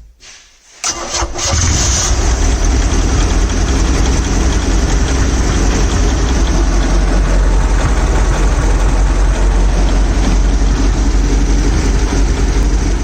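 Mercruiser 3.0 marine engine started by its cleaned starter motor: a brief crank about a second in, and the engine catches almost at once, then runs steadily and loudly.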